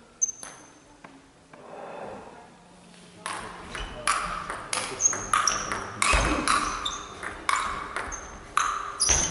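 Table tennis rally: the ball clicks sharply off the rackets and the table in quick alternation, about two to three hits a second, some with a brief high ping. One single click comes about a third of a second in, and the rally's run of hits starts about three seconds in.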